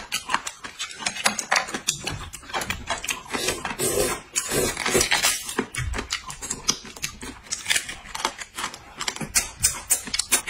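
Close-up eating sounds: hot-and-sour noodles slurped and chewed, with many small irregular clicks and smacks, and a longer slurp about four to five seconds in.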